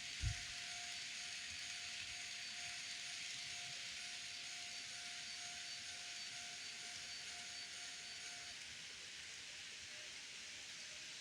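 N-gauge model train running on its layout: a steady hiss with a faint steady tone that stops about eight and a half seconds in, and a short low thump just after the start.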